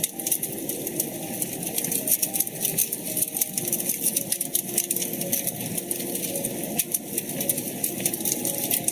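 Wood fire crackling in a fireplace: dense, irregular small pops and snaps over a steady low rustle of the burning logs.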